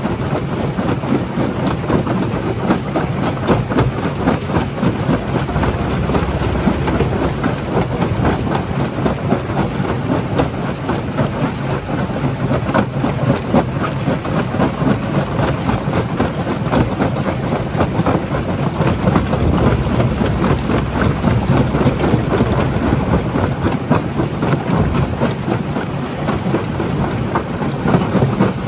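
Primary jaw crusher crushing rock: a continuous heavy rumble with a constant rattle of small cracks and knocks as the stone breaks.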